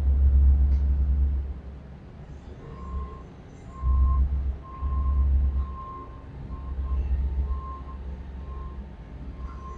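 Backup alarm on a construction vehicle beeping about once a second, starting about three seconds in. Underneath it, a low rumble swells and fades several times.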